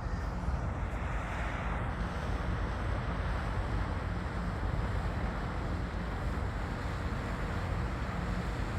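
Wind buffeting the microphone: a steady low rumble with an even hiss over it, and no distinct events.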